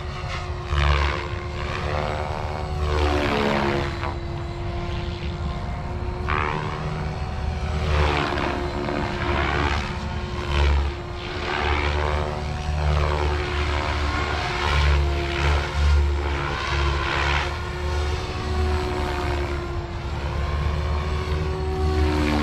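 SAB Kraken 580 electric RC helicopter flying at high head speed. Its rotor and motor give a steady whine with blade whoosh that rises and falls in pitch as it passes back and forth, with bursts of low rumble.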